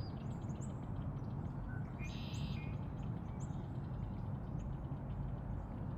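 Small songbirds calling: scattered short, high chip notes, with a brief buzzy call about two seconds in, over a steady low rumble.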